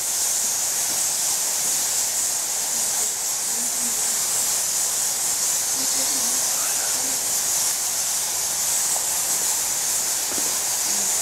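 Steady high-pitched hiss at an even level, with faint, distant voices murmuring now and then.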